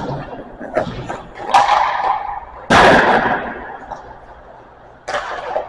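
Sharp cracks of hockey pucks being shot and striking hard surfaces, several in a few seconds with the loudest about three seconds in, each trailing off in the echo of the ice rink.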